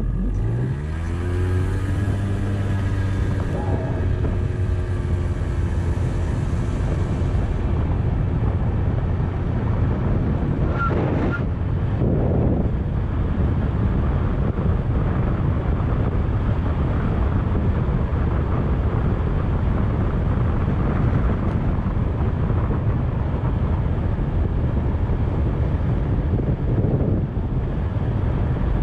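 Kymco scooter engine rising in pitch as it accelerates over the first couple of seconds, then running steadily at speed under wind noise on the microphone.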